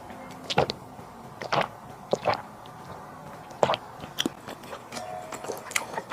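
Close-miked eating sounds: chewing and mouth noises, broken by about half a dozen sharp clicks and smacks at irregular intervals.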